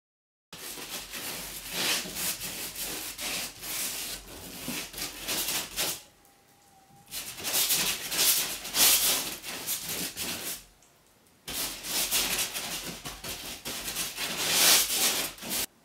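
Paintbrush scrubbing PVA glue over the tape-wrapped polystyrene boat frame as a sealing coat, in quick back-and-forth strokes. The brushing comes in three spells, with short pauses about six and eleven seconds in.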